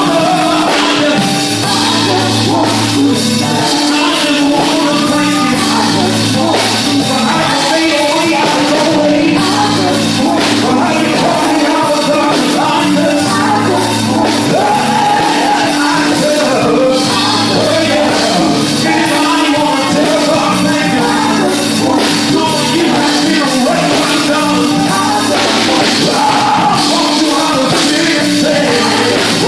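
Live gospel band playing: several singers over keyboard, electric bass and drum kit, with a held keyboard note and a steady beat.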